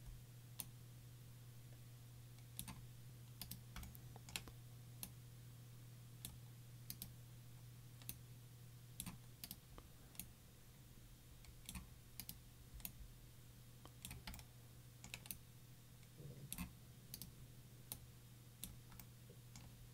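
Faint, irregular clicks of a computer mouse and keyboard as vertices are selected and moved in a 3D modeling program, over a faint steady low hum.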